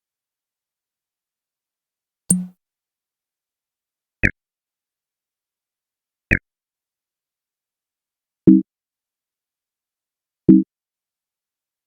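Five short electronic computer sound effects, one about every two seconds: first a low thump with a click, then two sharper clicks each with a brief high blip, then two short low bloops.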